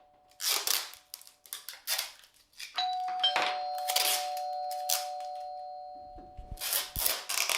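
Doorbell chime ringing: two steady tones sound together about three seconds in and fade away over about four seconds. Short rustling and clattering noises come and go around it.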